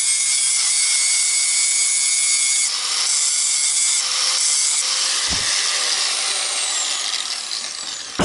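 Angle grinder cutting the head off the locator bolt on a steel leaf-spring pack. It starts abruptly and runs steadily with a high whine, then winds down with a falling whine near the end.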